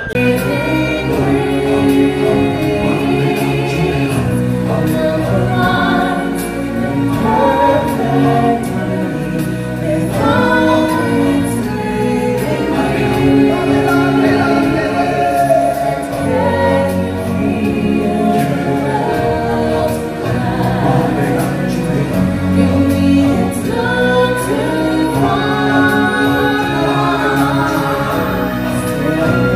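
Live stage-show music: a choir and lead singers performing an upbeat song over musical backing, loud and continuous.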